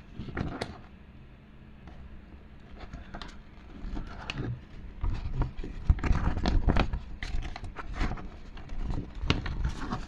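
Handling of a paper instruction manual and the box contents on a table: irregular rustles, scrapes and light taps, sparse at first and busier from about halfway through.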